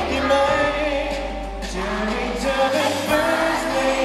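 A man singing a Thai pop song live into a handheld microphone over pop accompaniment, holding long notes.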